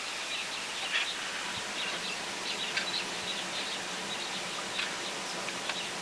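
Steady outdoor hiss with scattered short, high chirps of small birds.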